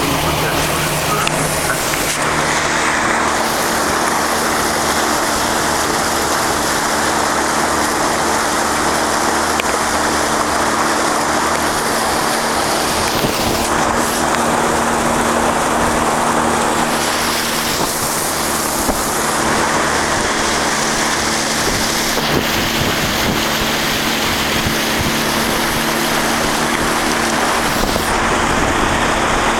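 Vehicle engine running steadily as it drives through water, with the constant rush and splash of water thrown up against the body.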